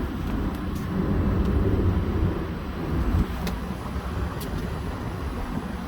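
Outdoor condensing unit of an LG inverter air conditioner running: a steady low rumble of fan and compressor, with a couple of faint ticks in the middle.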